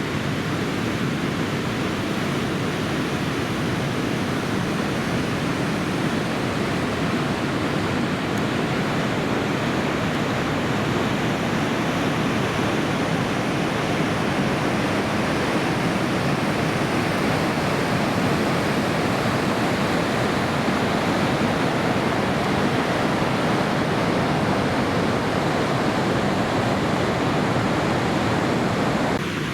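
Steady rushing noise of heavy surf from a typhoon swell, with no single wave crash standing out.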